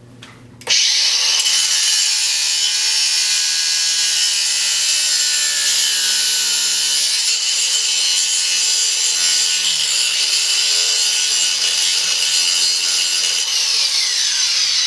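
Electric angle grinder with a cutoff wheel starting abruptly about a second in and cutting through a steel Allen wrench clamped in a vise, a loud, steady, high grinding sound. Near the end the grinder is switched off and its whine starts to fall as the wheel spins down.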